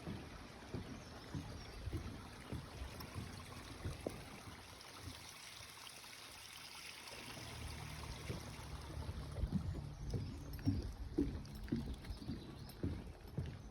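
Footsteps of a hiker walking on a forest trail, an irregular run of soft thuds that grows heavier and more frequent in the second half.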